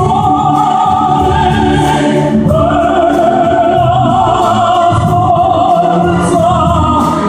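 Male singer singing through a handheld microphone over instrumental accompaniment, holding one long note with vibrato from about two and a half seconds in.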